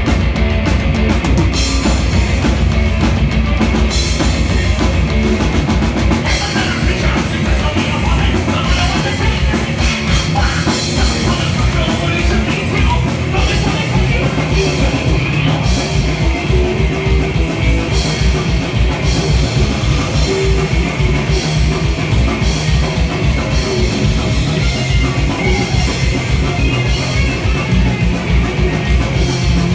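A live heavy metal band playing loud, with electric guitars over a drum kit. From about six seconds in the drums settle into fast, even low strokes.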